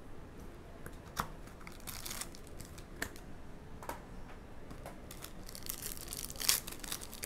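A foil trading-card pack from an Obsidian basketball box being torn open and crinkled by hand, loudest near the end. Before that come a few light taps and clicks of the pack and box being handled.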